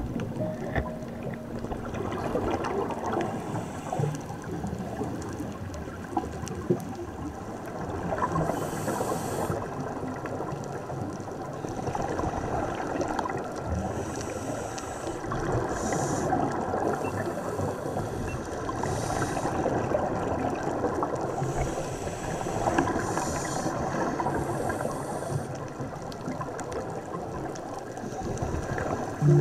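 Underwater sound picked up by a scuba diver's camera: a steady crackling, gurgling noise with a short hiss every few seconds, in the manner of a diver breathing through a regulator and exhaling bubbles.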